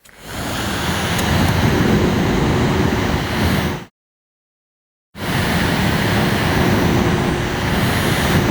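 Small portable air conditioner's fan running, a steady rush of blowing air with a faint steady hum. It cuts off abruptly a little under four seconds in and starts again about a second later.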